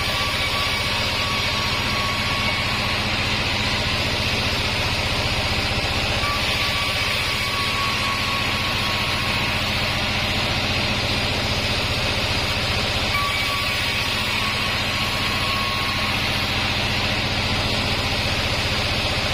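Large band sawmill running steadily, with a low machine hum and a hiss. A faint high whine comes and goes about every six or seven seconds.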